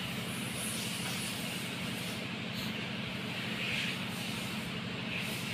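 Steady machine running in the background: a low, even hum with a hiss above it.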